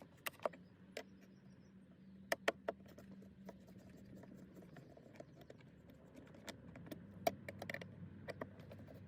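Scattered light clicks and clinks of hand tools and metal bolts as the bolts holding a car's centre console lid are worked loose. Irregular, with a couple of sharper taps, over a faint low hum.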